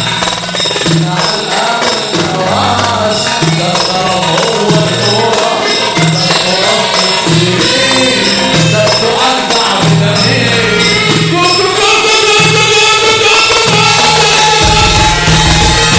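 Egyptian mahraganat song with an echo effect on the singing, over a loud, pulsing bass beat; a deeper bass comes in near the end.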